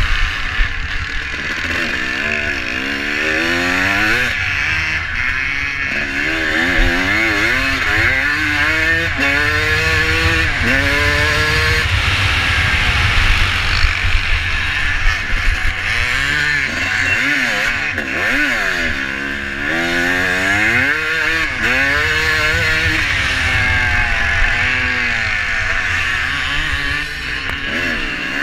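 Vintage motocross motorcycle's engine heard from on board, its pitch climbing and dropping back again and again as it accelerates and changes gear along the dirt track, over a steady hiss of engine and wind noise on the microphone.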